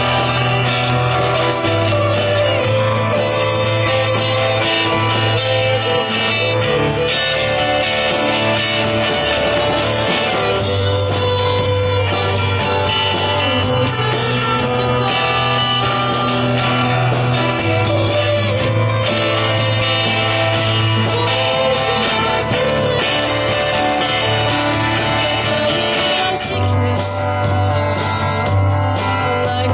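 Amplified rock band playing live: guitars, bass and drums with a singing voice, the bass line moving to a new note every couple of seconds.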